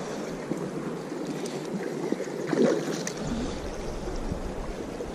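Steady rush of flowing creek water, with a brief louder rise about two and a half seconds in.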